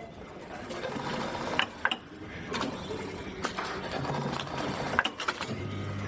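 Garment-workshop sounds: scattered clicks and knocks, then about five and a half seconds in a sewing machine starts running with a steady hum.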